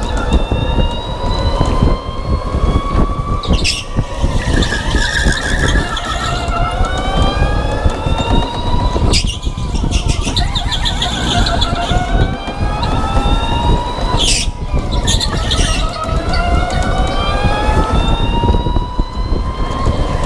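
Electric go-kart's motor whine, climbing and falling in pitch again and again as the kart speeds up on the straights and slows into corners, over a constant rumble of wind and chassis vibration. A brief rush of noise comes about every five seconds.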